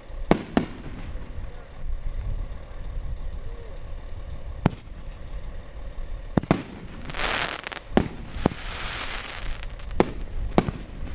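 Aerial fireworks going off: a series of sharp bangs at irregular intervals, one to several seconds apart. In the second half, a couple of seconds of dense hiss from the bursting stars sits between the bangs.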